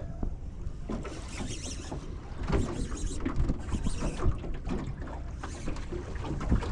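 Water slapping irregularly against an aluminium boat's hull, with wind buffeting the microphone and a constant low rumble.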